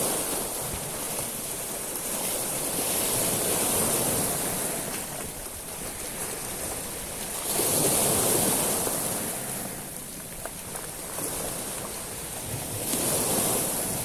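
Sea waves breaking and washing over a shingle beach of small stones, in swells about every five seconds, the loudest about eight seconds in.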